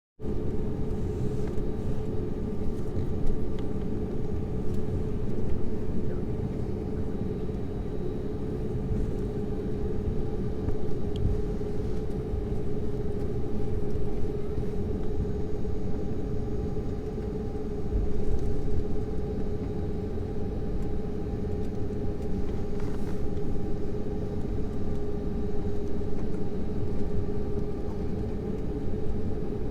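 Airbus A320 cabin noise: the jet engines' steady rumble with a constant droning hum over it, holding level rather than building.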